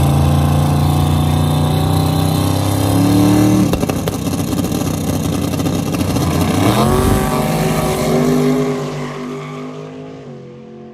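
Two drag cars, one of them a twin-turbo Camaro, running loud on the starting line with the engine note climbing at about three seconds. They launch about seven seconds in with a sharp rising note, then fade off down the track near the end.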